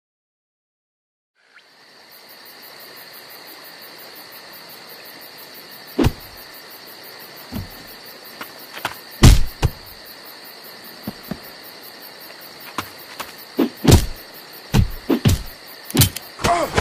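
Night ambience of crickets chirping steadily, starting about a second and a half in after silence. Over it, a series of sharp thumps from about six seconds in, coming faster near the end.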